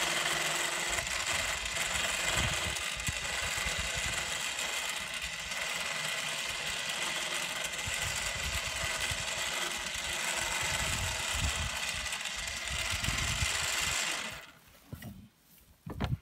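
Electric motor of an ATV-mounted game lift running steadily with a whining hum as it lowers the carrier. It cuts off suddenly near the end as the carrier reaches the ground.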